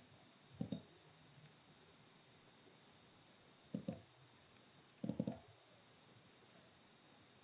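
Computer mouse clicking in quick pairs: once about half a second in, again near four seconds, then a faster run of three or four clicks just after five seconds, over faint hiss.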